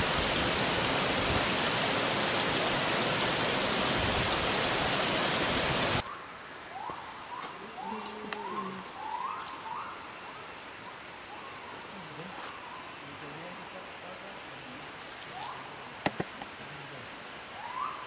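Shallow forest stream running over rocks, a steady loud rush of water. About six seconds in it cuts abruptly to a quieter jungle background: a steady high insect drone with repeated short rising calls, and a single sharp click near the end.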